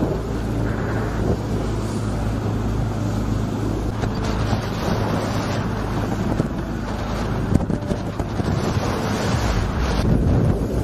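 Wind buffeting the microphone over the steady low drone of a boat's engine and the wash of choppy sea, recorded aboard a boat on open water.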